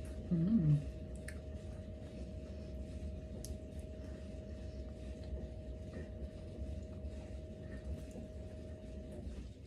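Steady low hum with a thin whine from an appliance running in the room, cutting off near the end. Over it are faint wet eating and chewing sounds of shrimp eaten by hand, and a brief low hummed voice sound about half a second in.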